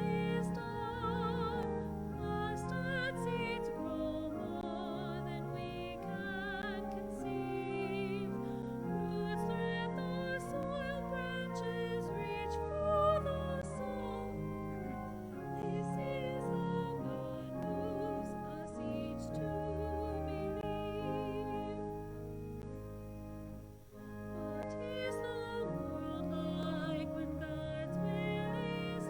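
Classical-style singing with strong vibrato on long held notes, over sustained instrumental accompaniment: a piece of sacred music.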